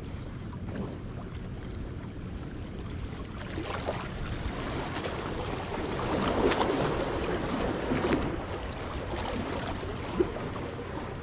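Surf washing against the jetty, with wind rumbling on the microphone; a wave surges up loudest a little past the middle, and a short tick comes near the end.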